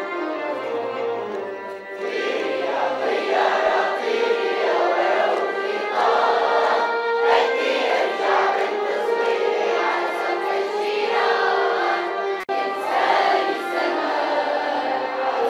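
Large choir of children and young adults singing together with instrumental accompaniment; the voices come in about two seconds in over held instrumental notes.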